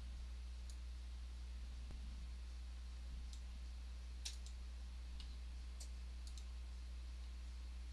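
Several faint computer mouse clicks, scattered and irregular, the clearest a little after four seconds in, over a steady low electrical hum.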